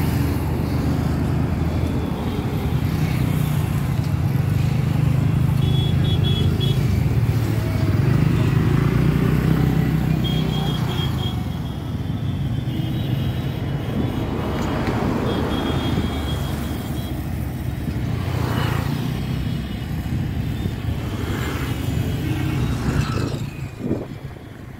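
A motor vehicle's engine running steadily at road speed, with tyre and wind noise. It quietens near the end.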